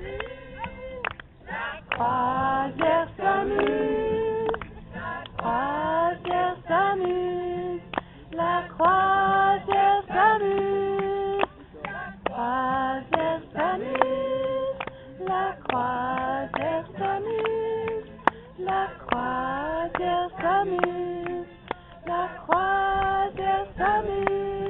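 A group of mostly women's voices singing a tune with long held notes, with no amplification, over a steady strummed or clapped beat from an acoustic guitar.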